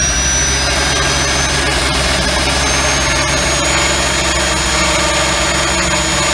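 High-speed rotary tool with a grinding bit running continuously, its high whine creeping up in pitch over the first few seconds and then holding steady. It is being used to cut away the dash opening to fit a double-DIN stereo. A steady low hum sits under it.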